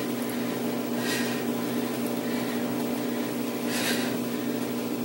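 Steady mechanical hum, with two short hissing sounds about a second in and near four seconds.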